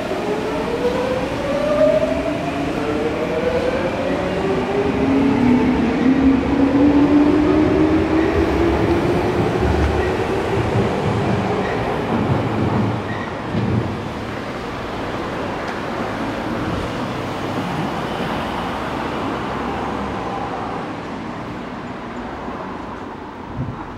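Electric train running close by: its motor whine falls steadily in pitch over the first several seconds over the rumble of the train, which is loudest about a third of the way in and then slowly fades.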